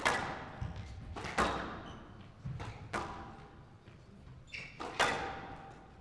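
Squash rally: the ball struck hard by rackets and hitting the walls, a sharp crack about every second to second and a half, each ringing off in a large hall, with a short squeak about two-thirds of the way through.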